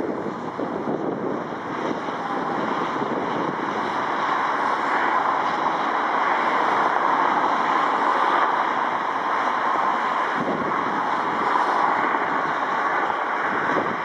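Strong wind buffeting the microphone, mixed with the steady distant noise of a Boeing 777F's jet engines as the freighter slows on the runway after landing. The sound grows somewhat louder a few seconds in.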